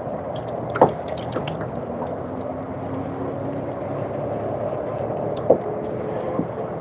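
Water sloshing and lapping against a kayak's hull, with two sharp knocks, about a second in and again near the end.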